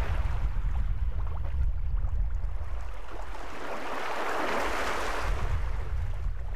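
Shallow water lapping at a shoreline, with wind rumbling on the microphone. A louder wash of water swells up about four seconds in and then eases off.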